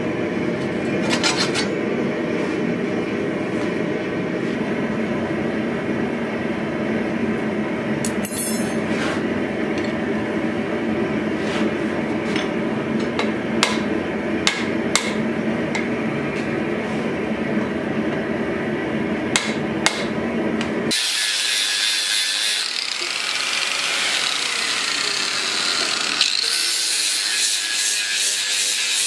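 A few sharp knocks sound over a steady low rumble. About two-thirds of the way in this cuts to an angle grinder grinding steel, a steady high-pitched hiss.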